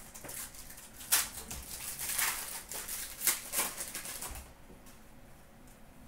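Hockey trading cards handled by hand, slid and flicked through a freshly opened pack: a run of papery rustles and crisp snaps for about four seconds, loudest around one and three and a half seconds in, stopping about four and a half seconds in.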